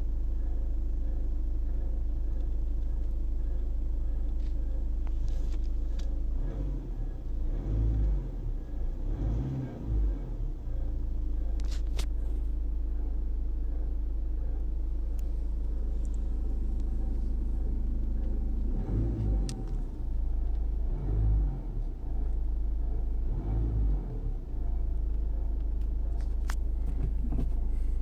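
VW Golf 6 GTD's 2.0 TDI four-cylinder diesel running with a steady low rumble, swelling a few times, and a few sharp clicks. Under it is the even but odd-sounding noise that the owner cannot identify.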